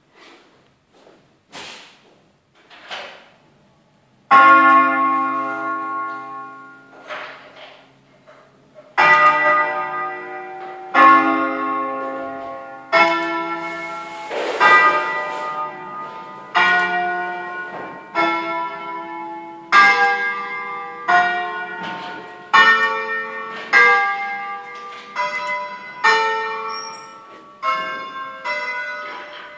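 Eight bronze church bells tuned in D-flat, cast by L. D'Adda in 1954, played one stroke at a time in a solemn concerto, heard from inside the sacristy. After a few faint knocks, a loud bell stroke comes about four seconds in, then single strokes of differing pitch, each ringing on as it fades, following faster and faster towards the end.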